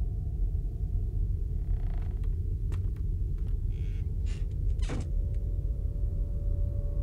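Low, steady rumbling drone of a horror-film soundtrack, with a few faint clicks and creaks in the middle and a short swish about five seconds in; a thin held tone creeps in near the end.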